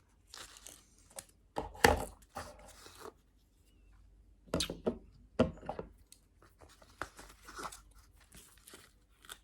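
Handling a nylon multitool sheath and metal tools: irregular rustling and scraping of fabric with several sharp clicks and knocks, the loudest about two seconds in.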